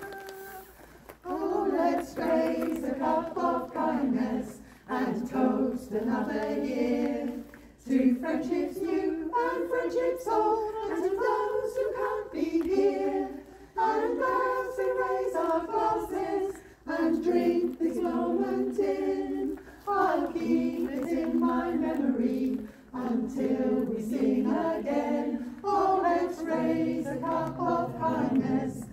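Choir of men and women singing unaccompanied, phrase after phrase with short breaks for breath. The singing starts about a second in.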